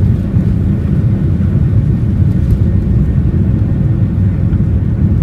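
Aeroplane during takeoff: a steady, loud low rumble with no rise or fall in pitch.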